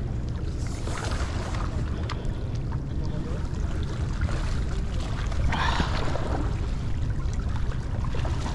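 Wind buffeting the microphone as a steady low rumble, with small waves washing and lapping against the rocky shoreline. A brief louder splash a little past halfway.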